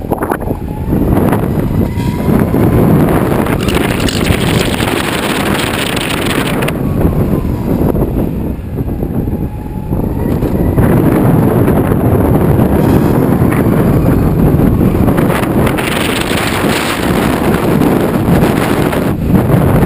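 Heavy wind rumble on the camera's microphone from riding along at speed, with a faint whine that rises and falls a few times and brief lulls in the middle and near the end.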